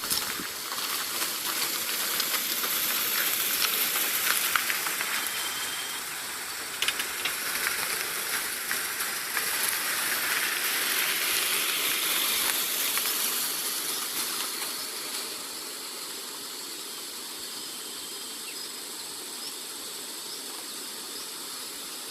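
Steady wideband hiss that starts and stops abruptly. It is louder for the first part and drops to a lower, even level about fifteen seconds in.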